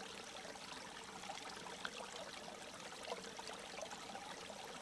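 Faint outdoor ambience with a soft, steady trickle of water and small scattered ticks.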